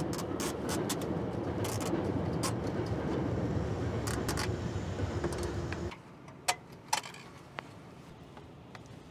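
Light plastic clicks and rattles of zip ties being handled and fastened behind a car's radiator fans, over a steady hum that stops suddenly about six seconds in.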